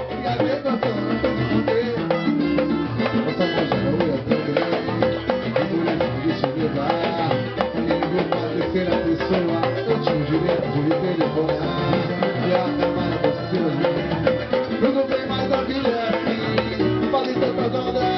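Live samba (pagode) ensemble playing an instrumental passage: dense hand percussion keeping a steady samba rhythm under plucked strings.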